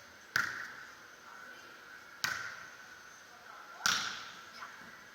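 A volleyball struck by hand three times in a rally, sharp slaps roughly two seconds apart, each followed by a short echo.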